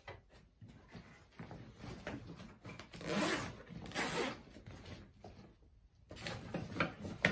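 Zipper on a tactical backpack being pulled open in several quick strokes, the loudest about three and four seconds in, with fabric rustling and more zipper strokes near the end as a mess kit is packed inside.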